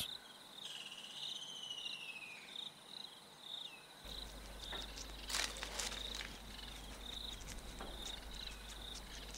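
Crickets chirping in a steady rhythm, about two chirps a second, with a wavering, falling whistled call in the first couple of seconds. A short burst of crackling about five seconds in is the loudest sound.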